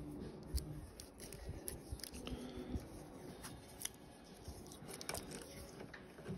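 Faint scattered clicks and crinkles of hands wrapping electrical tape around a wire splice and handling the ribbed plastic wiring loom.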